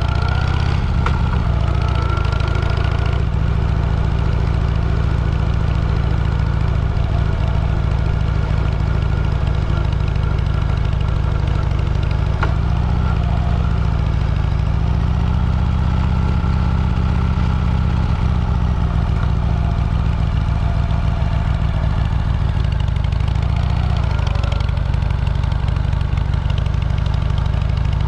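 A vehicle's engine running steadily while under way, with a loud, constant low rumble and a few slow rises and falls in pitch as the revs change.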